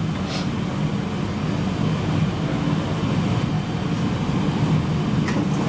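Airport people-mover train running with a steady low hum. There is a light click about a third of a second in and another near the end.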